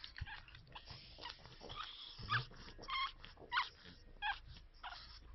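Two-week-old pug puppy whimpering and squealing: several short, high-pitched cries, the loudest in the middle of the stretch.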